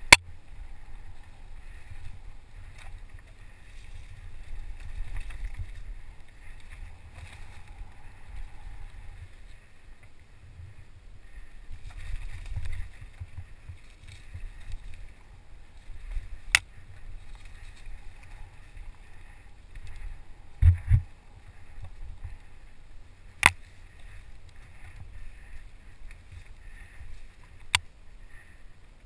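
Mountain bike riding down a dirt forest trail, heard through a helmet-mounted camera: a steady low wind and road rumble, broken by a few sharp knocks and rattles as the bike jolts over bumps. The loudest is a double knock about two-thirds of the way through.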